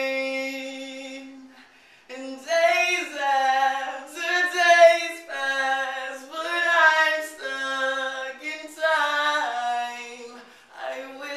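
A solo voice singing a song unaccompanied: a long held note fades away, then after a short gap come sung phrases with pitch slides and held notes.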